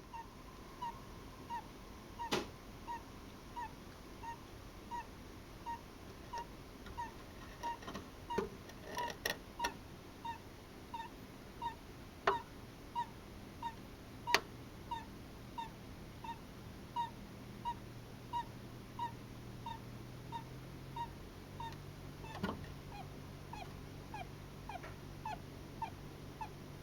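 Djungarian hamster (Russian Blue) snoring in its sleep: short, high squeaky peeps repeating steadily about three every two seconds. The peeps dip slightly in pitch near the end, and a few sharp clicks are heard among them.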